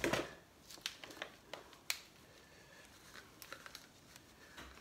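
A gloved hand scraping and scooping potting soil in a plastic tub: a rustle at the start, then scattered sharp clicks and crackles.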